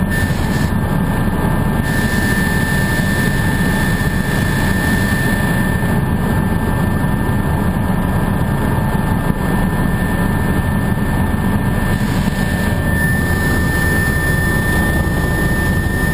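Helicopter engine and rotors heard from inside the cabin in level flight: a steady, loud drone with a steady high whine over it.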